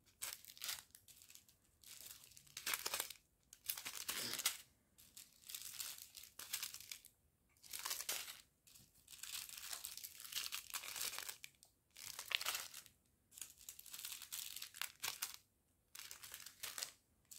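Small plastic sachets of diamond-painting drills crinkling as they are handled and turned, in irregular bursts of rustling with short pauses between.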